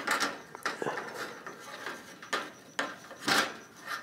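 Hands handling an airsoft goggle and mesh mask as the goggle is untied and lifted off: irregular plastic clicks, rattles and rustles of strap and string, about half a dozen, the loudest a little after three seconds in.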